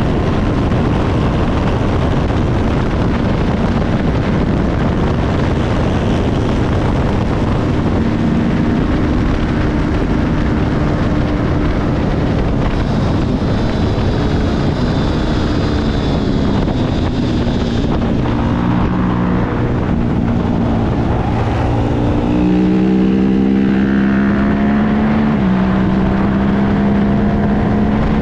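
Racing motorcycle at full speed heard from an onboard camera: heavy wind rush over the microphone with the engine's steady high-revving note underneath, the engine note growing stronger about three-quarters of the way through.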